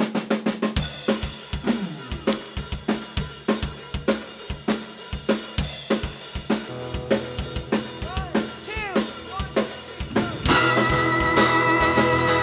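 Live rock band opening a song: a drum kit plays a steady beat on snare and bass drum, a low sustained bass part joins a little over halfway, and the full band with guitars and keyboard comes in louder about ten seconds in.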